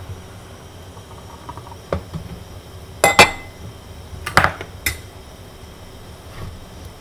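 A metal pot knocking and clanking against a portable burner stove: a single knock about two seconds in, a loud ringing pair about three seconds in, and a cluster of three knocks around four and a half seconds.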